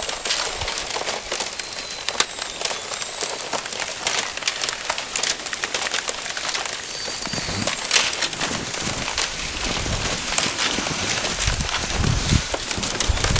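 Slush and thin sheets of freshly forming lake ice crackling and tinkling at the shoreline: a dense, continuous patter of tiny clicks, the sound of the lake freezing. A low rumble builds near the end.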